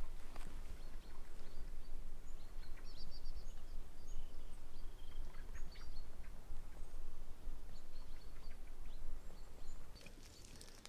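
Wind buffeting the microphone in a low, uneven rumble, with faint short bird chirps over it. The rumble drops away near the end.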